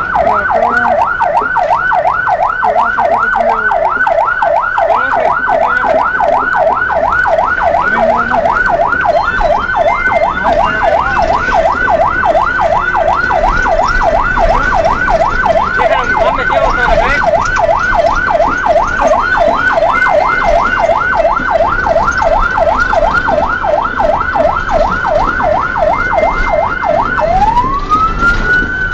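Fire engine siren in fast yelp mode, about three quick rising-and-falling sweeps a second, loud from inside the cab. Near the end it switches to a slow wail, rising once.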